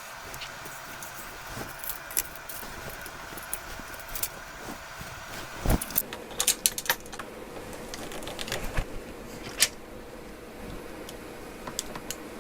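Light clicks, taps and clinks of small repair tools and smartphone parts being handled during a phone teardown, with a louder knock about six seconds in and a busier run of clicks after it, over a faint steady hum.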